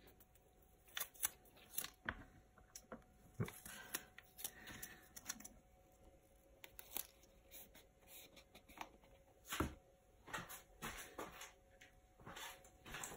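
Faint, scattered clicks, taps and rustles of plastic tubs and lids being handled, with a faint steady hum beneath.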